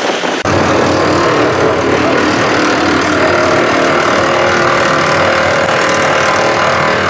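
A loud engine running steadily, cutting in abruptly about half a second in.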